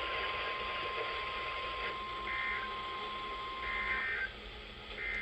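NOAA Weather Radio receiver hissing with static and a faint steady tone that cuts off about four seconds in. Three short bursts of warbling digital data, about 1.4 s apart, are the SAME header of the weekly test.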